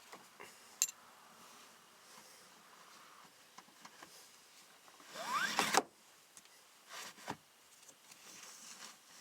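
Chevy truck seatbelt pulled out and run through its retractor: one quick zip about five seconds in, with a rising whir, and a few sharp clicks around it. It no longer squeaks now that the retractor has been sprayed with lubricant.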